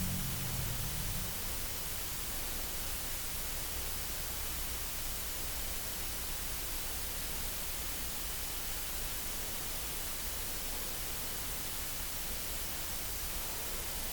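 Steady, even hiss of background noise. A low rumble fades out in the first second. No cracks, knocks or other distinct events are heard.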